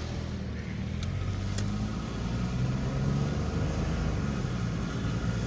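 Car engine running and road noise heard from inside the cabin as the car drives along, growing gradually louder, with the engine note rising a little partway through.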